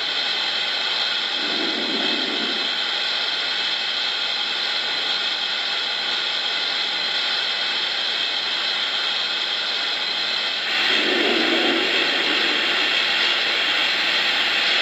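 Pop-off steam sound of a Lionel VisionLine Union Pacific Big Boy O scale locomotive: a steady, loud hiss of the safety valves venting, played through the model's sound system. It gets louder about eleven seconds in.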